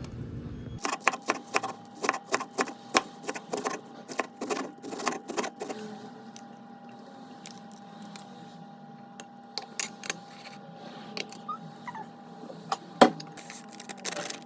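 Rapid, irregular clicking and light clattering of small hard objects, dense for the first few seconds and then sparser, with one sharp loud click near the end, over a steady faint hum.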